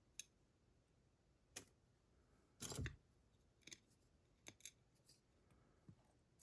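Faint, scattered small metal clicks, with one short clatter about two and a half seconds in: pins and tools being handled while the Dorma DC500 lock is taken apart.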